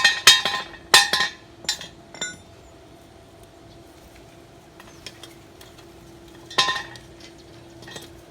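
Ringing metal clanks, as of steel being struck or knocked together in welding work: a quick irregular run of strikes in the first two seconds, then one more clank about six and a half seconds in, over a faint steady hum.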